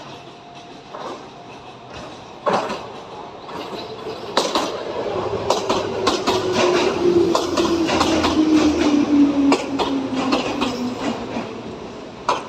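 Seibu 4000-series electric train arriving at a station platform and braking to a stop. Its wheels clack over the rail joints, and a whine falls steadily in pitch as it slows.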